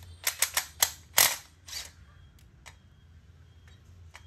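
Makita cordless brushless impact wrench fired in short trigger blips on a bolt: about six quick, sharp bursts of hammering in the first two seconds, then it stops with only a few faint ticks.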